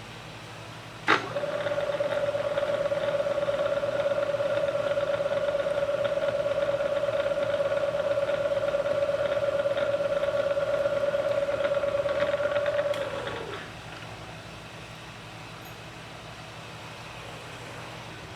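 Electric drill starting with a click and running at a steady pitch for about twelve seconds while drilling the cross-pin hole through a gearbox shaft and hub, then winding down and stopping.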